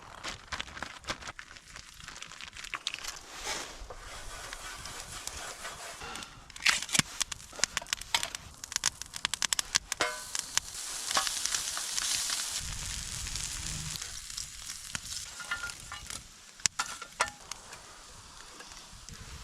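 Food frying and sizzling in a pan over a campfire, with crackling and a run of sharp clicks about a third of the way in, and the sizzle swelling louder just past the middle.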